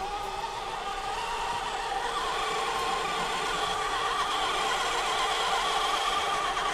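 Traxxas TRX4 RC crawler's electric drivetrain whining as it drives, a steady whine that wavers slightly in pitch and grows louder as the truck comes closer. The whine is unusually loud, a change the owner has noticed come on suddenly without knowing why.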